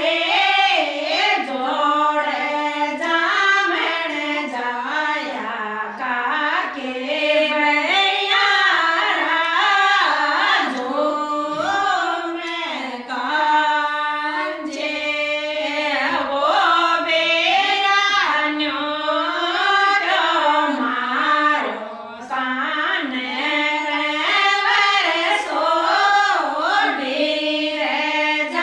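Women's voices singing a traditional folk song in a high, winding melody that carries on without a break.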